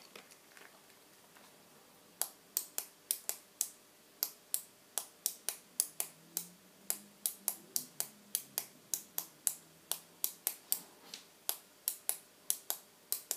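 A long run of sharp, separate clicks, about three a second, starting about two seconds in.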